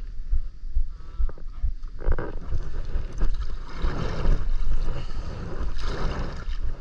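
Kayak paddle strokes splashing and dripping in seawater, starting about two seconds in and repeating roughly once a second, over wind buffeting the action-camera microphone.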